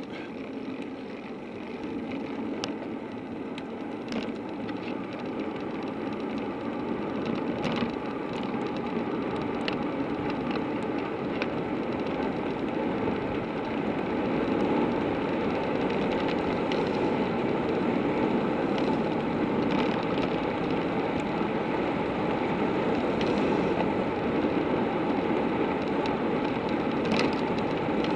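Wind rush and tyre noise of a bicycle coasting down an asphalt road, growing louder as it picks up speed. Now and then a sharp click or rattle comes from bumps in the road.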